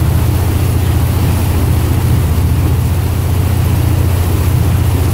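Motorboat engine running steadily under way, a loud low drone with a fast even pulse, over the rush of the churning wake.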